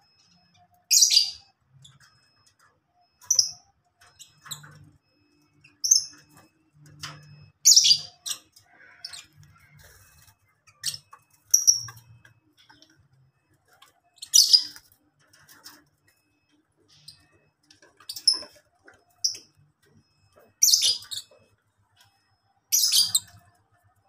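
Lovebirds in an aviary giving short, loud, shrill calls about every two seconds, with quieter chirps between.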